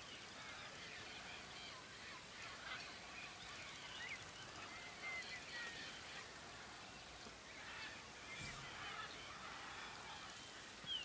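Birds calling over each other: a steady scatter of short chirps and whistled notes, with a louder call right at the end.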